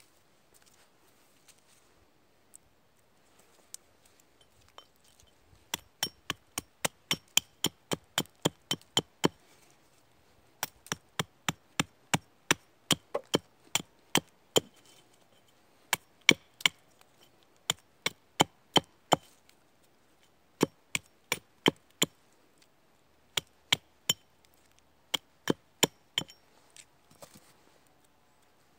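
Batoning: a wooden baton knocking a knife down through a stick to split it, a series of sharp knocks about three a second in several runs with short pauses, each knock with a faint ring.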